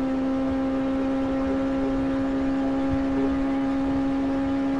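Kawasaki sport motorcycle's engine running at a steady cruising speed, holding one even note with no change in revs, over low rumbling wind noise on the microphone.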